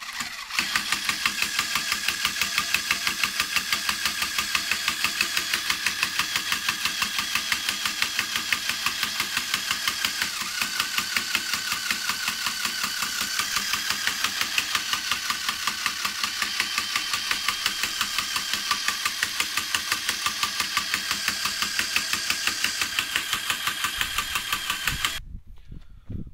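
Small DC motor spinning the eccentric rotor of a homemade wooden centrifugal-drive cart, shaking it along the table: a steady whir with a fast, even pulsing, starting at once and cutting off about a second before the end.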